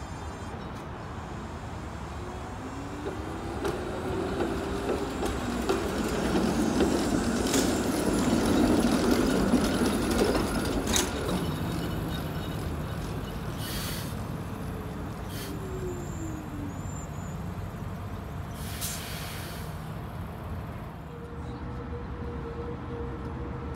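TTC CLRV streetcar rolling out of a tunnel and around a curved loop track: the rumble of its wheels and motors swells to its loudest about midway and then fades, with a motor whine rising in pitch early on and falling later. A few sharp clicks and two short hisses sound over the rumble.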